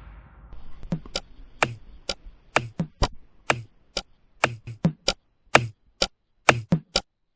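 Sharp, dry knocks in an uneven, syncopated rhythm, about two to three a second, after a fading electronic music track dies away at the start.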